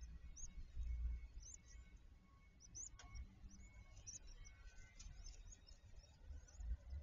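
Faint, high, thin bird chirps repeating in quick little clusters throughout, over a low rumble that swells about a second in and again near the end.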